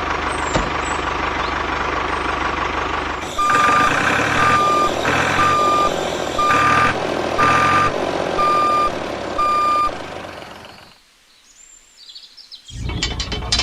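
A vehicle's motor runs steadily. Then a reversing alarm beeps about seven times, roughly once a second, and the sound fades away. Another noise starts near the end.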